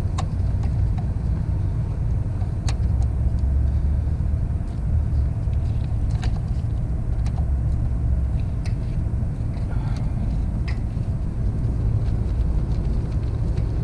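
A steady low rumble throughout, with scattered light clicks and taps of a screwdriver working the terminal screws of an RV fridge's 12-volt power input.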